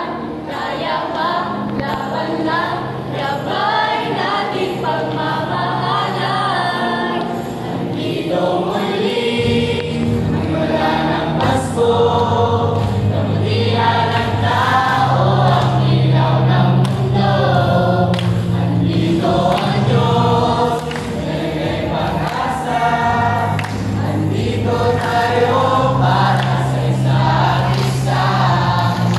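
A youth choir of boys and girls singing a Christian song together, over sustained low accompaniment notes that change in steps every second or two.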